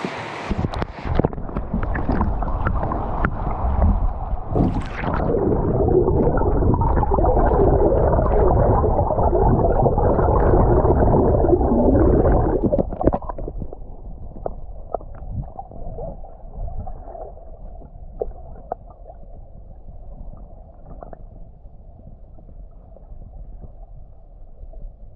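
Flowing river water heard through a camera's microphone held underwater: a muffled gurgling rumble with many small knocks and ticks. It grows loud over the first dozen seconds, then drops to a quieter rumble with scattered ticks about halfway through.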